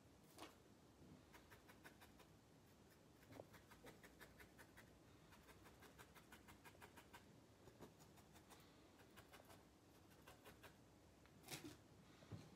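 Faint, rapid scratchy ticks, about five a second, in runs of a few seconds: a felting needle stabbing into the wool of a needle-felted sculpture's face. A few louder handling knocks, one near the start and two near the end.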